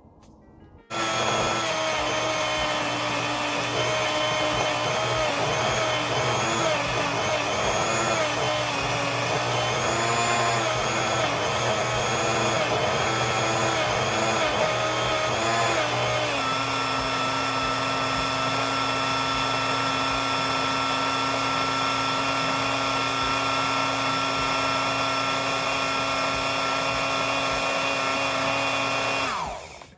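Small electric blender running, blending chopped onion, garlic and fresh cilantro into a paste. It starts about a second in. The motor whine wavers in pitch for about fifteen seconds while the pieces are thrown about, then runs at a steady pitch until it cuts off near the end.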